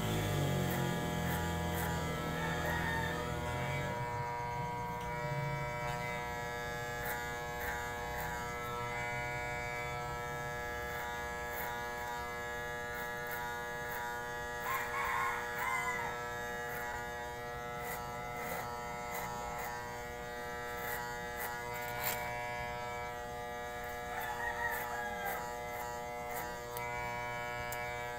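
Corded electric hair clipper running with a steady buzz as it cuts hair. A rooster crows twice in the background, about halfway through and again near the end.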